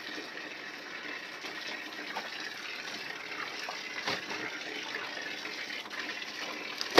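Water pouring steadily from an outdoor pipe spout onto a concrete washing slab, with a few faint knocks and a sharp click near the end.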